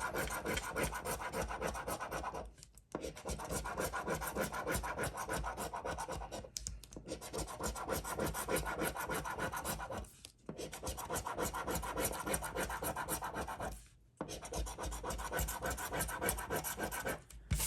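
A scratch-off lottery ticket's coating being scratched off in rapid strokes, in five bouts of about three to four seconds each with brief pauses between them.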